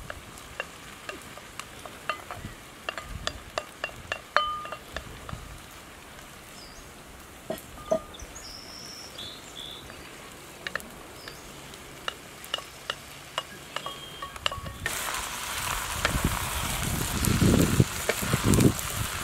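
A wooden spatula clicks and scrapes against a bowl and pan as diced vegetables are tipped into a wide pan over a wood fire. About fifteen seconds in, a loud frying sizzle sets in abruptly, with stirring scrapes as mushrooms, green peppers, carrot and potato fry in the hot oil.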